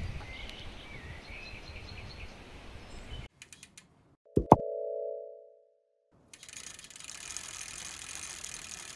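Animated logo sting: two sharp clicks about four and a half seconds in, then a short steady tone that fades away within about a second. Faint outdoor ambience comes before and after it.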